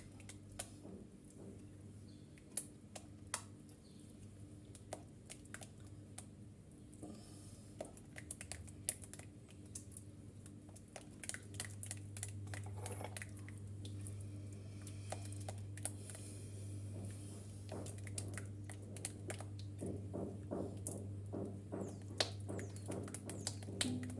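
Kitchen utensil stirring a thickening lemon cream in a pot: scattered light clicks and taps against the pot, over a steady low hum that grows a little louder about halfway through.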